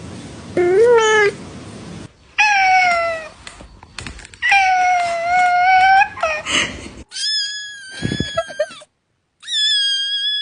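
A domestic cat giving a string of about six drawn-out meows, some sliding down in pitch and others held on one pitch.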